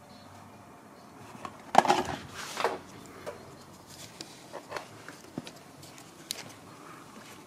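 Handling noises: a short clatter of knocks and rustling about two seconds in, then a few scattered light clicks over a quiet room tone.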